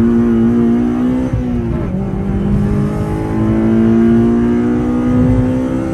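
Honda Civic Type R FD2's 2.0-litre four-cylinder engine heard from inside the cabin under hard acceleration, its pitch climbing steadily. About two seconds in it drops for an upshift, then climbs again through the next gear.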